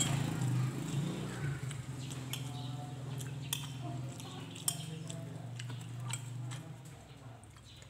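Metal spoon and fork clinking and scraping against a ceramic plate of fried rice, in short scattered clicks. Under them a steady low hum runs and fades out near the end.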